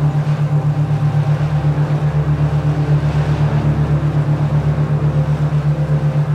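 Low steady tone beating evenly about six times a second, a binaural-beat drone for relaxation, over a soft hiss.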